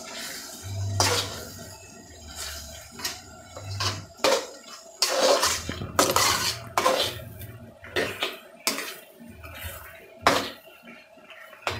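Spatula scraping and knocking against an aluminium pan while stirring chicken pieces in thick gravy, in irregular strokes about once a second.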